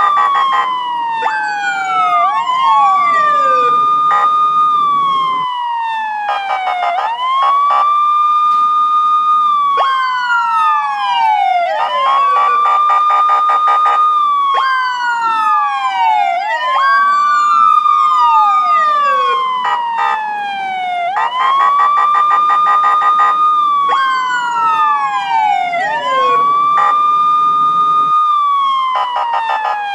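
Police sirens wailing, two of them overlapping out of step: each wail rises quickly in pitch, holds, then slides slowly down, repeating about every four to five seconds.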